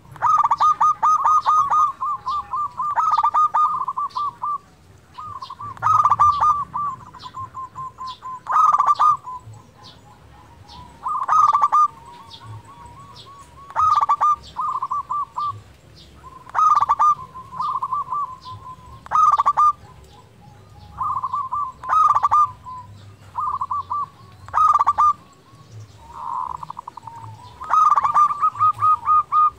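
Zebra dove (perkutut) singing its rhythmic cooing song. Each phrase is a quick burst of notes followed by a trailing string of softer coos, and the phrases repeat about every two and a half to three seconds. It is a local bird in frequent song ('gacor').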